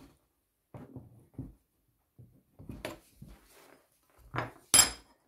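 Scattered knocks and clicks of hand tools handled on a wooden workbench: a pin spanner on an angle grinder's flange nut, and the grinder and spanner being lifted and set down, with the sharpest clack near the end.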